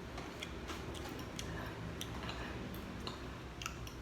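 Close-miked eating of roast chicken: soft, irregular wet clicks and smacks of chewing over a low steady background hum.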